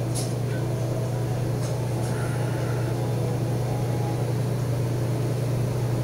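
A steady low background hum at an even level, like a room's air-conditioning or machinery, with no other distinct sound.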